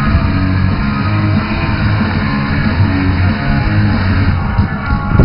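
Music playing, led by guitar, with held notes over a steady low bass.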